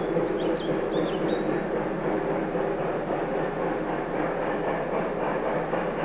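A steam-hauled train rolling by on the rails: a steady rumble of wheels and cars.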